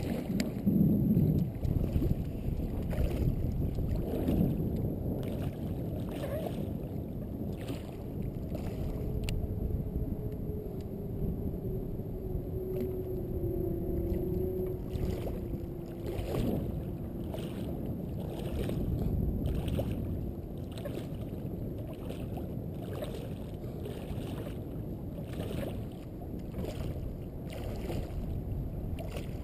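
Water splashing and lapping at a float tube, with short splashes about once a second as the angler kicks with swim fins, over a steady low rumble of water and wind on the camera housing.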